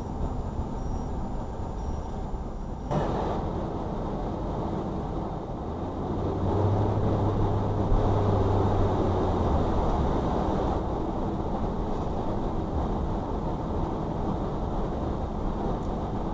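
Car road noise from inside a moving car: a steady rumble of tyres and engine. It grows louder about three seconds in, and louder again for a few seconds in the middle.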